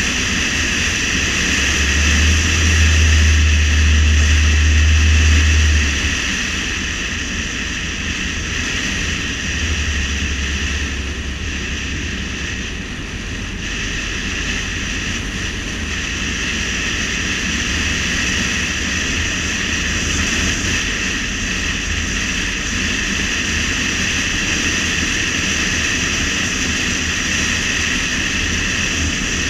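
Steady road and wind noise of a car driving at speed, with a louder low rumble from about two to six seconds in.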